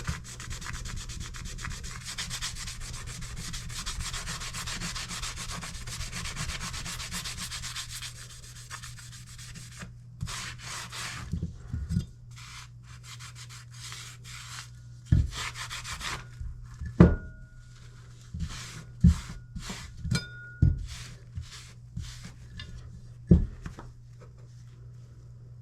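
Kitchen knife blade being stroked across a sharpening stone: continuous rapid scraping for the first eight seconds or so, then slower separate strokes with several sharp knocks in the second half.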